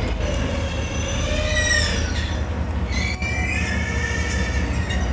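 Steel train wheels squealing in high-pitched screeches that come and go, over the steady low rumble of a diesel locomotive slowly shoving an open freight wagon during shunting.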